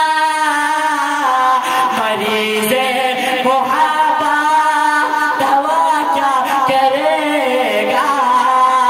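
A man singing a naat, a devotional song in praise of the Prophet, unaccompanied into a microphone. He holds a long steady note that breaks about a second in into wavering, ornamented melodic phrases.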